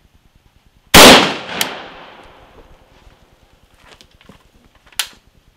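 A single very loud rifle shot from an AK-74 firing a 5.45x39 60-grain Hornady V-MAX round, about a second in, with a quieter crack about half a second later and a long fading tail. A short, sharp crack follows near the end.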